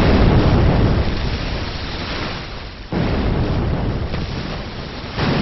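Three heavy booms of 76 mm naval gunfire, about two and a half to three seconds apart, each fading slowly.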